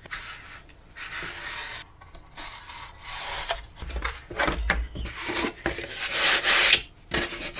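Depron foam wing and aileron pieces sliding and rubbing against a wooden tabletop under the hands, in a run of scraping strokes with a few light taps; the longest, loudest rub comes about six seconds in.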